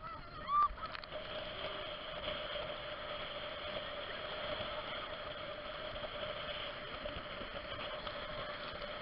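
Motorboat engine running at a steady pitch with the hiss of water and wind, heard dulled through a waterproof camera housing. A brief high squeak rises and falls about half a second in.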